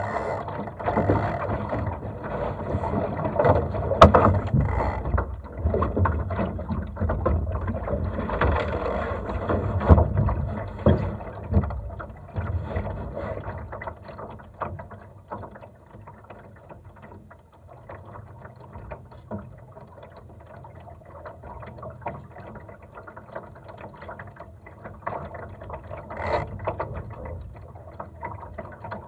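Laser sailing dinghy moving in light wind: water lapping and trickling along the hull, with many small clicks and knocks from the boat's rigging and fittings. It is louder and busier for about the first twelve seconds, then settles quieter.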